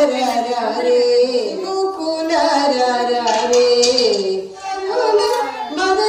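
A woman singing a melodic song, with long held notes and pitch glides, over music.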